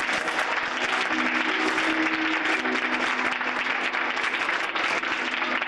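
Audience applauding after a children's song, with a steady held musical note underneath for a couple of seconds, starting about a second in.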